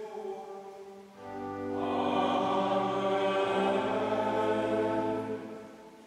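Latin liturgical chant: a lone sung voice trails off in the first second, then a choir answers with a loud, sustained chanted response in held chords that shift pitch a couple of times and fade out shortly before the end.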